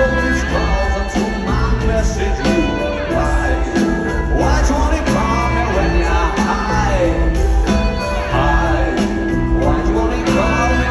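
Live rock band playing a passage without lyrics, with a steady repeating beat and bass pattern and gliding melodic lines over it.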